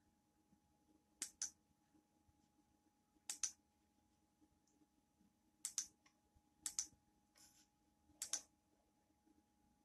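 Five pairs of sharp clicks, spread a second or two apart, against near silence.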